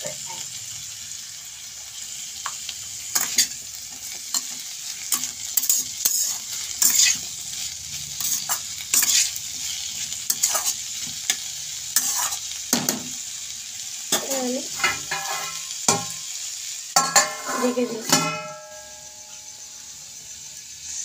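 Vegetables sizzling in a non-stick wok while a metal spatula stirs them, scraping and clicking against the pan many times. Near the end a glass lid is set on the pan with a short ringing clank, and the sizzle goes quieter under it.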